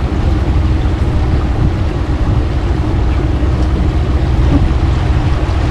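Small tour boat's motor running steadily while under way, with a heavy low rumble of engine and water noise.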